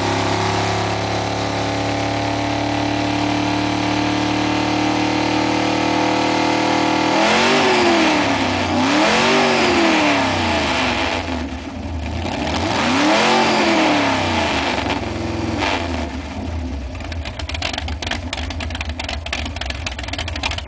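Engine of a rear-engine 1963 Ford wheelstander running steadily, then revved up and down three times from about seven seconds in, before dropping back to a choppy, uneven idle near the end.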